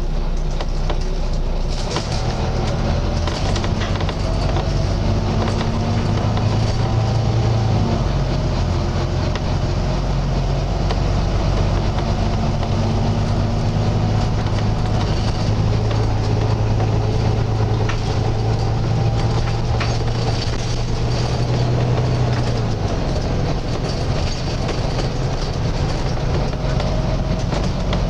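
Volvo B9TL double-decker bus under way, heard from inside: its six-cylinder diesel engine running with a steady low hum and a faint whine that slowly rises and falls in pitch. The engine note shifts about 8 seconds in and again around 23 seconds.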